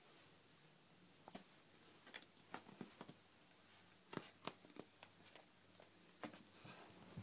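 Faint, scattered clicks and scratches of a kitten scrabbling and clawing at the phone and the clothing of the person holding it, with handling rubs on the phone.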